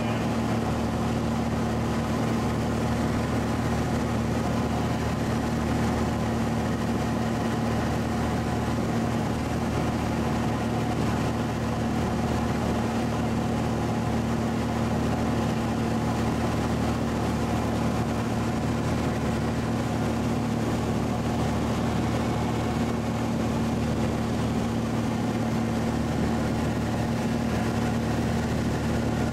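Light airplane's engine and propeller running steadily in flight, a constant hum at one unchanging pitch.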